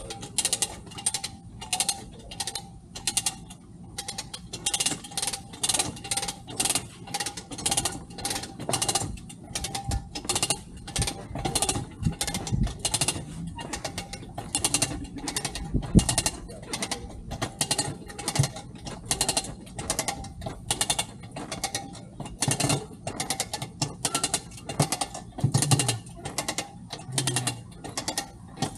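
Hand ratchet on a lifting strap being cranked, clicking about twice a second with a few short pauses as the strap is drawn tight to lift a partly sunk boat's stern. A few dull knocks sound in between.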